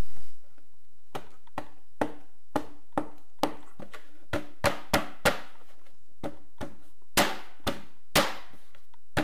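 Irregular sharp taps and knocks on a wall panel as it is pressed and tapped into place against the corner trim, about sixteen in all, a few louder ones in the second half.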